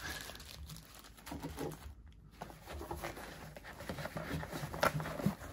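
Faint handling noises: a plastic zip bag of tinder rustling and being set down, then hands moving a nylon pouch, with scattered soft taps and rustles.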